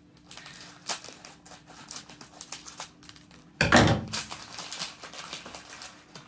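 Plastic snack packaging crinkling and rustling as it is handled and opened, with one louder burst of rustling a little after halfway.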